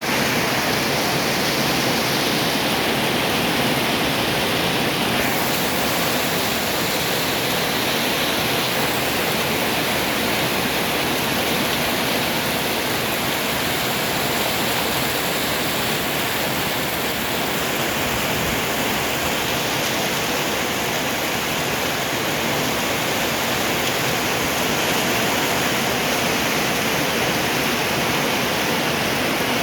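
Heavy rain falling in a dense, steady hiss.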